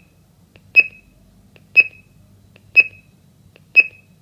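Golden Security GS-G90E alarm control panel beeping during its exit delay after arming: one short, high beep every second, four times, counting down before the system arms.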